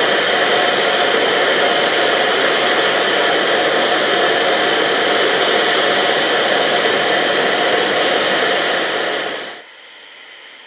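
Loud, steady rush of steam escaping from an LNER V2 steam locomotive, cutting off abruptly about nine and a half seconds in.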